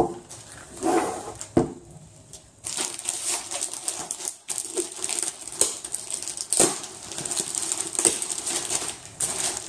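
Hands handling camera gear and its packaging on a table: a sharp knock as an item is set down, another about a second and a half in, then steady rustling and crinkling of packaging with scattered clicks and taps.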